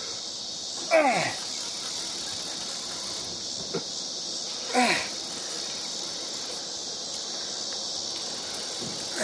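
Steady high-pitched chorus of insects buzzing in the background. Two short calls fall steeply in pitch, about a second in and again near five seconds.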